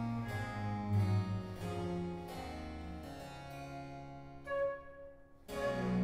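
Baroque chamber ensemble playing an instrumental passage: harpsichord chords struck about twice a second over low bowed strings. Near the end a baroque transverse flute enters with a clear sustained note.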